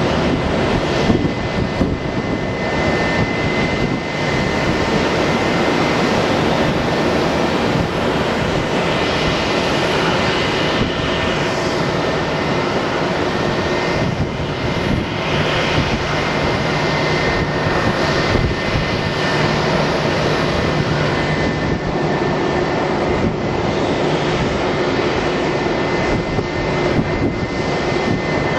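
Jet airliner engines running, a steady roar with a high, even whine on top.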